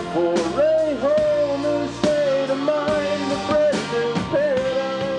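Live Americana rock band playing: a man singing a bending melody over drums with cymbal hits, bass guitar and electric keyboard.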